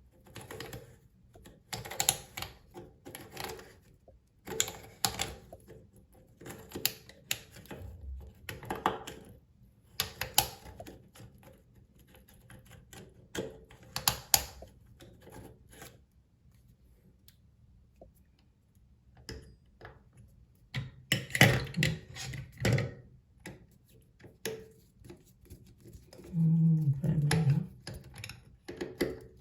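Irregular clicks and knocks of groove-joint pliers and metal faucet parts as a faucet cartridge is tightened down, with a quieter stretch partway through. Near the end there is a short, low grating sound.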